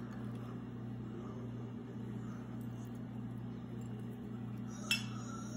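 A faint steady low hum, and near the end a single light clink of fingers knocking a small stainless-steel bowl as chopped garlic is picked out of it.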